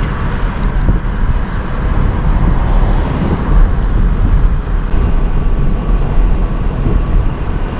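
Motorcycle riding at speed: engine running under heavy wind buffeting on the microphone, with a deep rumble. It cuts off suddenly at the end.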